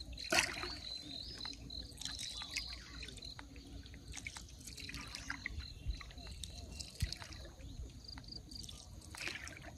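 Faint trickling and dripping water with scattered small clicks. An insect chirps in even, rapid pulses for the first few seconds.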